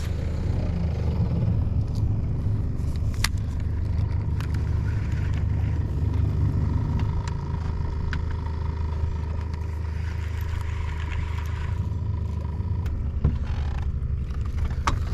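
A small boat's outboard motor running steadily with a low drone while under way, with a few sharp knocks.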